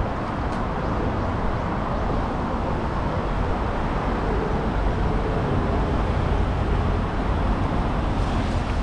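Steady road traffic on a busy city street: cars and other vehicles running past in a continuous low rumble.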